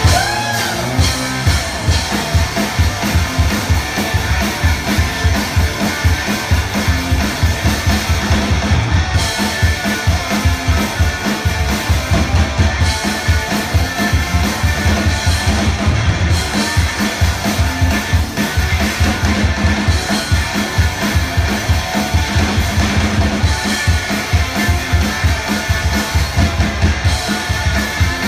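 A live rock band jamming, a guitar-and-drums duo: loud guitar over a drum kit playing a fast, steady beat.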